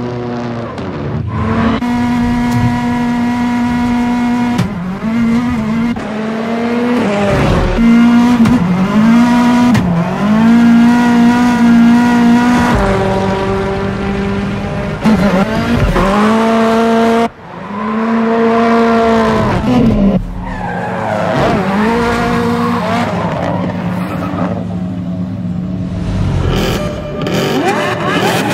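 Rally car engine revving hard, held at high revs for stretches and then dropping and climbing again, over and over, with tyres squealing as the car slides.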